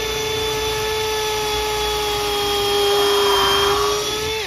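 DeWalt XR cordless drill running a bit into wood to drill a pilot hole: a steady motor whine that sags slightly in pitch about three seconds in as the bit works, and stops at the end.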